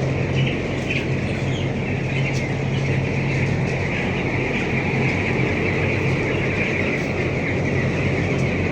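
A large flock of young chicks cheeping together in a dense, unbroken chorus over the steady hum of a ventilation fan running in the poultry shed.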